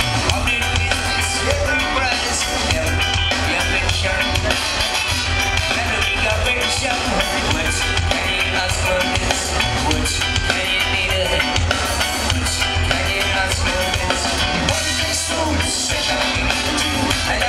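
Reggae band playing live through a concert PA, with drum kit and heavy bass, heard from within the audience.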